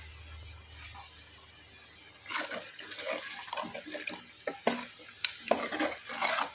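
Chicken curry gravy in a pan being stirred with a spoon: wet sloshing and spoon-on-pan clicks in irregular bursts from about two seconds in. A steady low hum comes before them.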